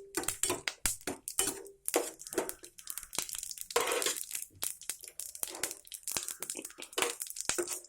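Peanuts, dals and mustard seeds frying in hot oil in a pan, being stirred while they roast: dense, irregular crackling with scraping and clinking in the pan.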